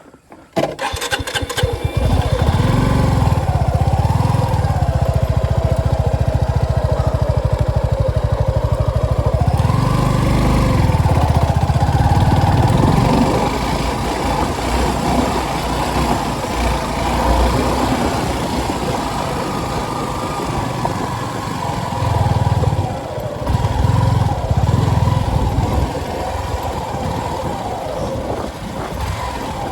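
Motorcycle engine started, then running and pulling away at low speed, the revs rising and easing off several times.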